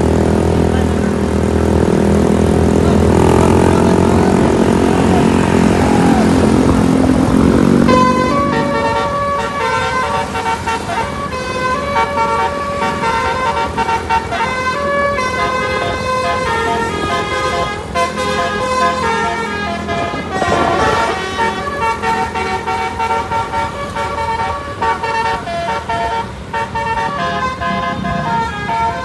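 Bus horns: a deep, loud low horn chord held for about the first eight seconds, then a telolet horn playing a rapid run of short notes that keep changing pitch.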